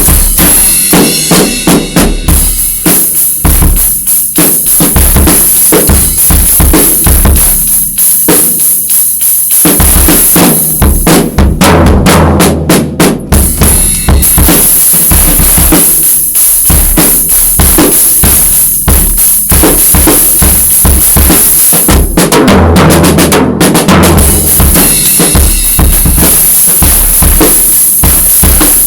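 Acoustic drum kit played freestyle: bass drum, snare and cymbals in continuous loud playing with fills, and no pauses.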